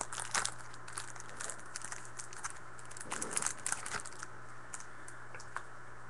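Plastic trading-card pack wrapper crinkling and tearing as it is opened and peeled off the cards, in irregular crackles that thin out after about four seconds.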